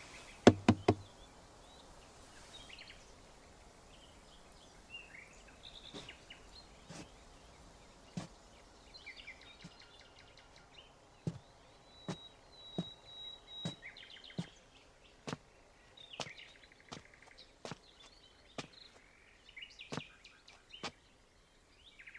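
Quiet outdoor ambience with birds chirping, broken by short sharp knocks: two louder ones about half a second in, then single knocks roughly once a second from about six seconds in.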